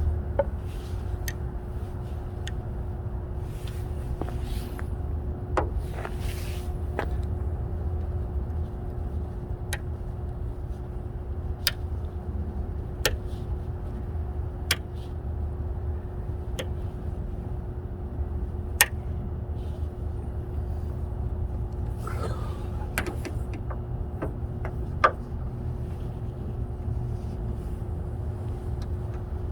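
Scattered sharp clicks and taps of parts being fitted by hand to a car, with a couple of short rustles, over a steady low rumble.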